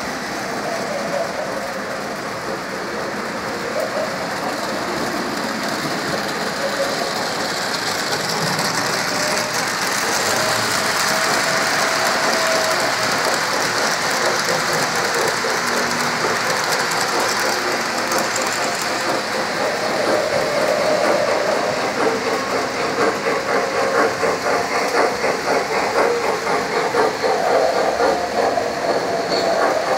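Electric O-gauge model train running on its track: a steady whir of motor and wheels that grows louder, turning into a rapid, rhythmic clicking of the wheels over the rail joints in the second half as the cars pass close by.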